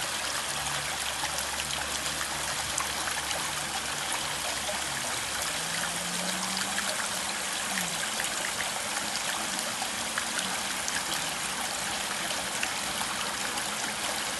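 Steady trickle of running water in a backyard pond, with a faint low hum underneath that rises in pitch about six seconds in.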